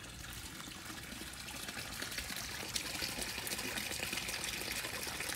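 Water trickling from a pipe outlet of the estate's irrigation system down into a concrete pit, a steady splashing that slowly gets louder.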